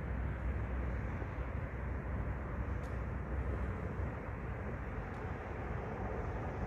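Steady outdoor rumble and hiss of wind on the microphone mixed with distant road traffic.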